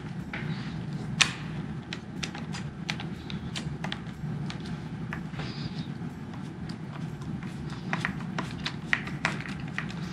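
Light clicks and taps of a screwdriver and small metal parts as a screw is driven into a motorcycle clutch lever perch, the sharpest about a second in and a few near the end, over a steady low hum.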